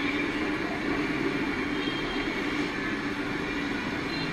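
Played-back noise: a steady rumble with thin high squealing tones above it, like rail transport. It runs on without a break.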